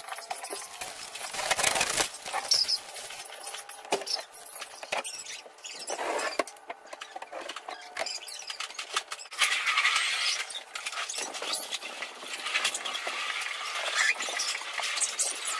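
Masking paper crinkling and rustling and painter's tape being peeled off a freshly painted truck roof, in irregular crackly spells as the masking comes off after the clear coat.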